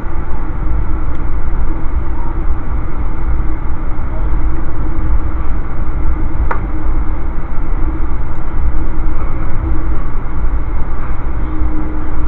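Amtrak passenger train running at speed: a steady loud rumble and rush of wheels and air, with a faint steady hum that grows a little near the end and one sharp click about six and a half seconds in.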